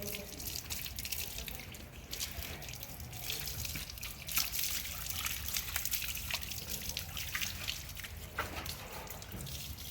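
Water splashing and dripping as shampoo is rinsed off a dog's coat, a steady spatter of small drips and trickles.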